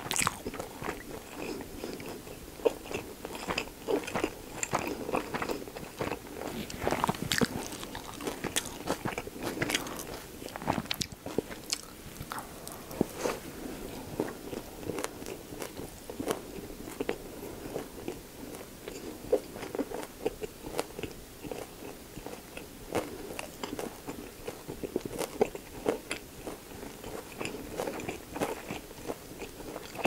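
Close-miked chewing of a mouthful of pork-belly gimbap (seaweed-wrapped rice roll with lettuce and pickled radish), with many small crunches and clicks.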